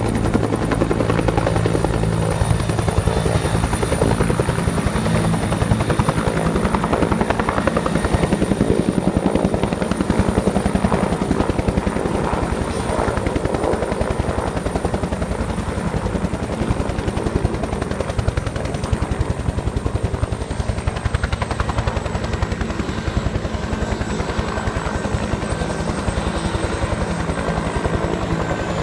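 Turbine helicopter running, its rotor beating rapidly and steadily under a thin high whine. The whine dips slightly in pitch about two-thirds of the way through and again near the end.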